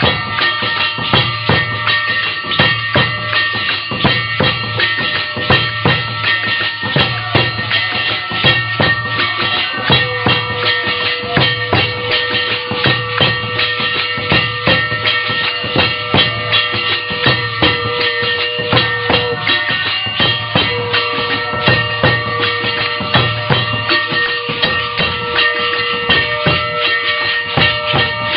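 Music with a steady, regular drum beat under long held instrumental notes.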